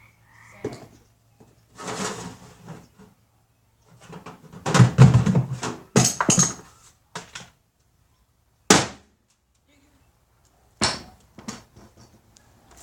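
Several knocks and thuds from objects being handled and hit, the loudest a heavy low thud about five seconds in and a sharp knock just before nine seconds.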